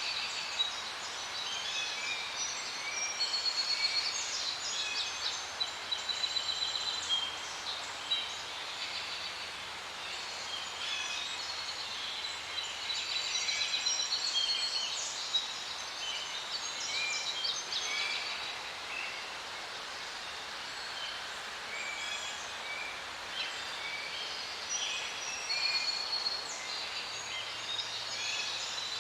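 Forest birds chirping, trilling and calling over one another in a dense chorus, with repeated high notes, over a soft steady hiss of breeze.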